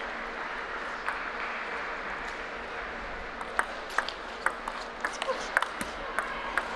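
Table tennis rally: the ball clicks sharply off the rackets and the table in quick alternation, about two to three strikes a second, starting about halfway through after a single click about a second in.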